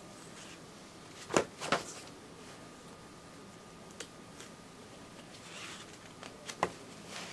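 Paper pages of a ring-binder catalog being turned: two short rustles about a second and a half in, a small click around four seconds, and more page rustling near the end, over quiet room tone.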